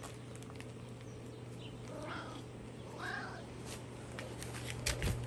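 Domestic cat meowing twice, two short calls about a second apart. Near the end come a few sharp knocks, over a low steady hum.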